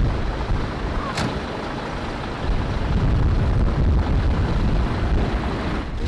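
Storm wind buffeting the microphone: a heavy, gusting low rumble that eases about a second in and builds again about two and a half seconds in, with a brief sharp click about a second in.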